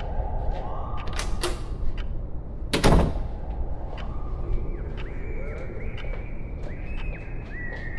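A low steady drone with scattered faint clicks, broken about three seconds in by a single loud bang. In the second half, faint high tones glide up and down.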